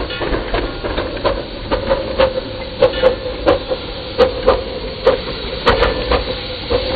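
5-inch gauge miniature live-steam locomotive passing close by under way, with steam hissing and a run of sharp, irregular clicks and knocks from its running gear and the wheels on the track, over a steady hum.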